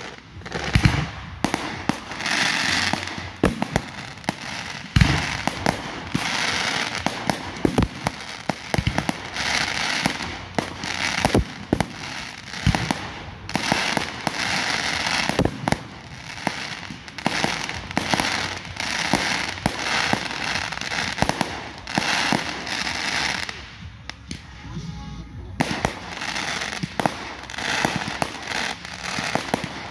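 Aerial fireworks going off in quick succession: many sharp bangs with crackling from the bursting shells in between.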